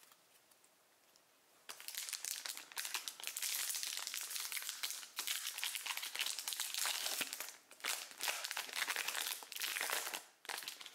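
Foil wrapper of a trading-card booster pack crinkling as it is torn open and handled, starting about two seconds in, with a few brief pauses.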